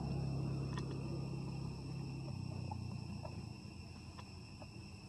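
Insects droning steadily on a high pitch, with a low rumble underneath that drops away a little over two seconds in, and a few faint clicks.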